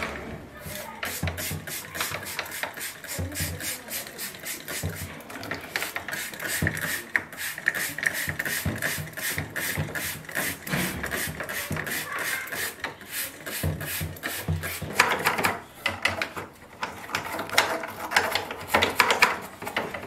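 Dense, irregular scratching and clicking of a small plastic tool being worked around the back of a refrigerator, with the loudest clusters about 15 and 19 seconds in.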